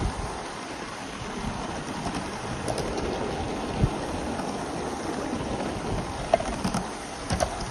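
Gauge 1 live-steam train in motion behind an Aster 9F locomotive: a steady rushing noise with a few sharp clicks and knocks from the wheels on the track.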